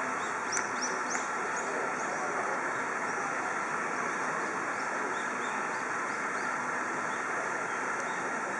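Steady outdoor background noise, with small birds giving short high chirps in two bursts, one about half a second to a second and a half in, the other around four to six seconds in.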